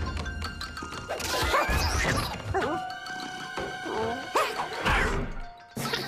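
Cartoon soundtrack: music with slapstick crash and whack sound effects, the biggest hits coming about a second in and again near the end.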